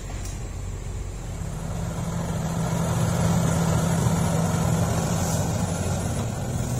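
Sumitomo SH350 excavator's diesel engine running steadily, growing louder from about a second in and staying up before easing slightly near the end.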